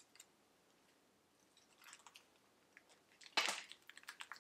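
Play Foam bead modelling compound being handled and pulled apart by hand: a few faint sticky clicks, then a louder crackle about three and a half seconds in and a string of small clicks. The foam beads are clumped and glued together rather than loose.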